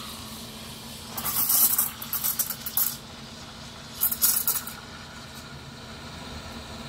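Espresso machine steam wand stretching milk in a metal pitcher. The steam hisses and sputters in uneven bursts, first about a second in and again about four seconds in, with quieter steaming between them.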